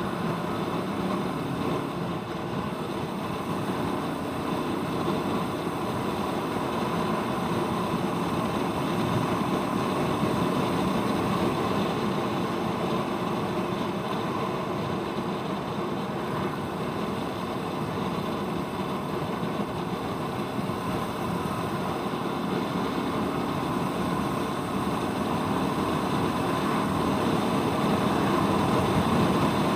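Royal Enfield Meteor 350's single-cylinder engine running steadily on the move, getting slightly louder near the end.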